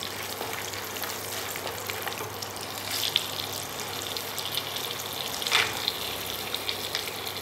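Chopped cashews, almonds and other dry fruits sizzling in hot desi ghee in a stainless steel kadhai, a steady frying hiss with small crackles, stirred at first with a wooden spatula. A brief rattle about two-thirds of the way through as sliced coconut is tipped in.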